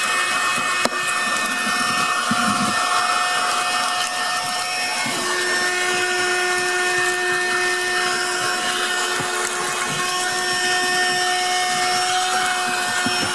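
Handheld 12-volt car vacuum cleaner running steadily with a whining motor tone, sucking up debris from the car floor. A single click comes about a second in, and the whine changes pitch about five seconds in.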